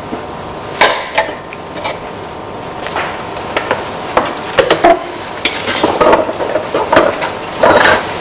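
A string of irregular knocks and clatters of hard objects, coming more often in the second half, over a steady hiss.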